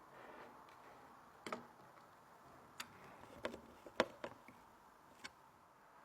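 Light clicks and taps of computer hardware being handled and fitted during a PC build, about seven scattered sharp clicks with the loudest about four seconds in.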